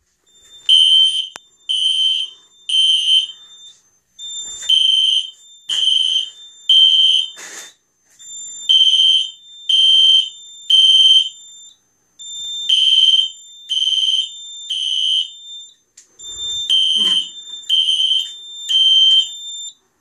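Fire alarm horns (System Sensor SpectrAlert horn strobes) sounding the temporal code-3 evacuation pattern after a manual pull station was pulled on a Simplex 4004 fire alarm system. Groups of three short, high-pitched blasts about a second apart repeat about every four seconds, five groups in all, with a steady high tone under each group.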